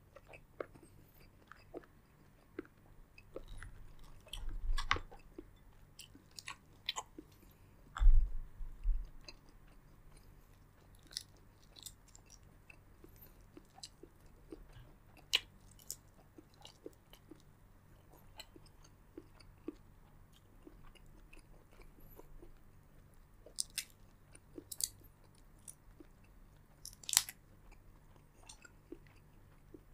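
Close-miked eating of a seafood boil: chewing with many scattered sharp clicks, and louder bumps with a low thud about four and eight seconds in.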